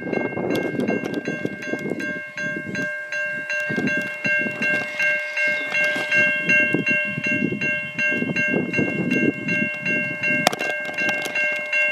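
Level crossing warning bell ringing steadily, about three strikes a second, sounding the warning for an approaching train while the boom gates are down. A low gusty rumble runs underneath, and there is a single sharp click about ten and a half seconds in.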